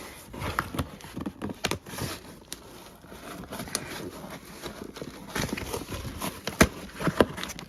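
Cardboard box being worked open by hand: irregular knocks, scrapes and rustles of cardboard and packing.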